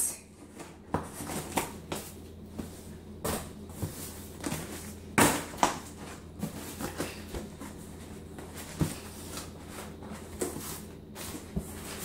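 Cardboard shipping box being handled and opened: scattered knocks, taps and scrapes of the cardboard, the loudest a pair of knocks about five seconds in, with some rustling of packing paper.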